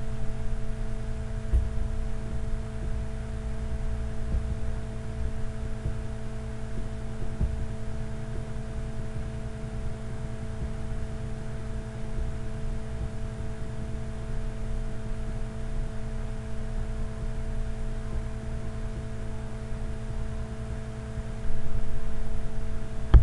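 Steady electrical hum: a few constant tones over a low rumble, with a few faint clicks. It gets louder shortly before the end.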